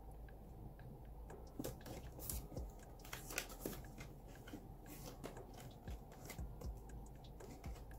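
Rustling and crinkling of plastic pockets in a cash-envelope binder as its pages are turned and handled, with scattered light clicks and taps from the metal binder rings.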